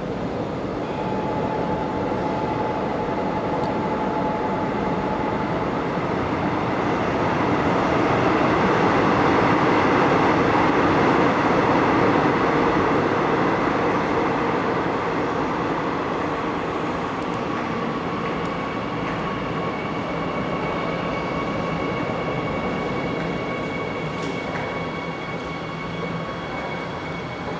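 Seoul Metro Line 9 subway train running unseen on a track behind the closed platform screen doors. Its rumble swells to loudest about ten seconds in and then slowly fades, with thin steady whines coming and going over it.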